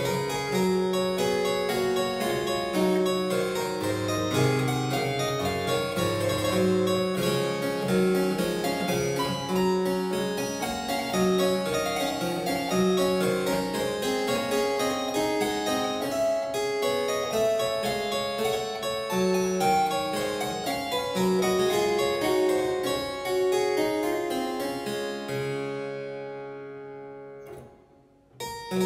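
Solo harpsichord playing a piece of plucked notes and chords. Near the end the last chord dies away almost to silence, and a new piece begins just at the close.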